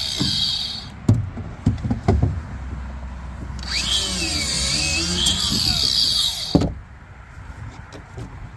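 Power drill running, then a few sharp knocks, then the drill running again for about three seconds with a wavering pitch before it cuts off suddenly.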